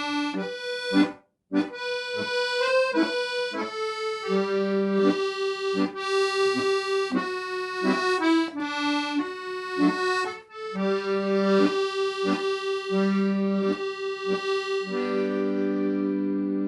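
Accordion playing a melody over bass-button chords, with short detached notes and a brief pause early on. It ends the tune on a long held chord.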